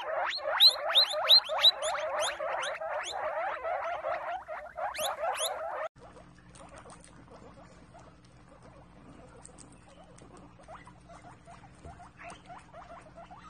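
Guinea pigs wheeking: loud, rapid, repeated high squeals over a dense squeaky chatter. About six seconds in this cuts off suddenly to quiet nibbling of fresh greens, with faint clicks and small squeaks.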